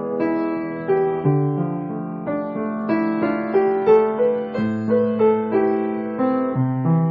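Background music: a piano piece, its notes and chords changing about twice a second.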